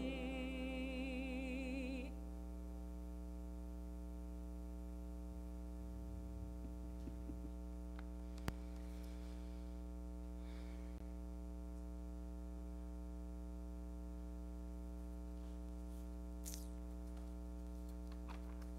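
A sung hymn ends on a held note with vibrato about two seconds in. After it, only a steady hum of even, unchanging tones remains, broken once by a single sharp click.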